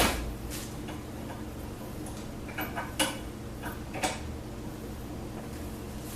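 Sharp metallic clicks and clanks of hand tools and loose parts while a car's sway bar is taken off: one loud click at the start, more around three and four seconds in, over a steady low hum.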